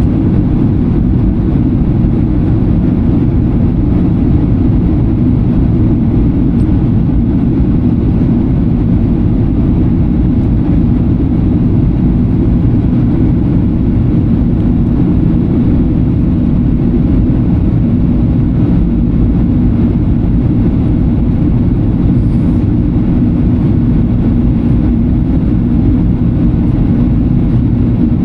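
Steady low drone inside the cabin of a Boeing 737-800 in flight: engine and airflow noise that stays even, with no distinct events.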